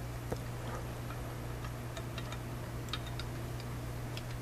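Faint, irregular small metal clicks and ticks as the oiled yoke and cylinder assembly of a Smith & Wesson Model 10 revolver is fitted into the frame and handled, over a steady low hum.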